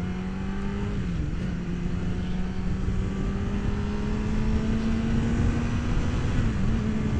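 Sportbike engine pulling under load while riding, its pitch climbing slowly, with brief dips about a second in and near the end as it shifts up a gear. Wind rush on the helmet microphone underneath.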